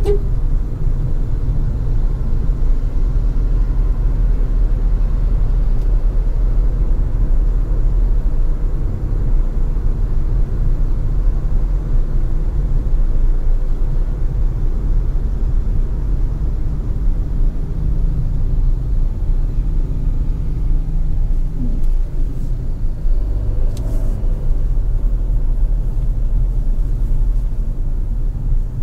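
Steady low rumble of a car driving: road and engine noise, with no change in pace.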